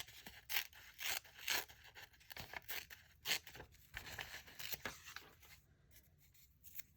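Paper being torn by hand in a series of short, irregular rips, which ease off near the end.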